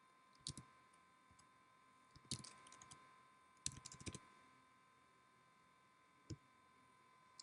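Faint computer keyboard and mouse clicks in four short clusters of quick taps, over a faint steady high tone.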